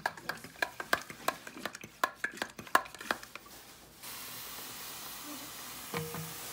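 Sharp, irregular clicks and taps, about three or four a second, stop after about four seconds. Then a pump spray bottle starts misting the tank with a steady hiss.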